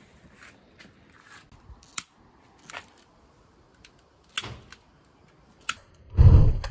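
Scattered sharp clicks and short rattles as a long-nosed butane lighter is worked at a smoker firebox packed with dry sticks. About six seconds in comes a brief, much louder low rumble.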